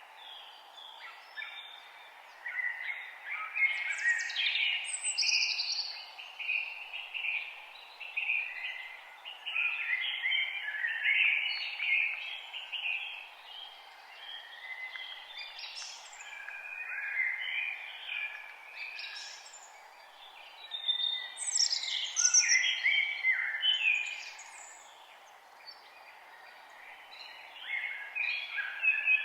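Several songbirds singing and chirping in a forest, with overlapping trills and quick rising and falling whistles over a steady background hiss; the song comes in busy spells with short quieter gaps.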